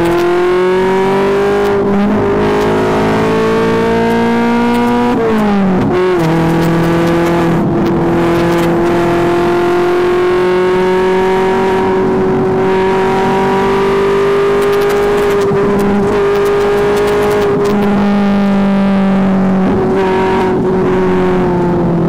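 Tuned Alfa Romeo GT engine and exhaust pulling under load while driving, heard from inside the cabin. The engine note is steady and climbs slowly, with a sudden brief drop in pitch and recovery about five seconds in.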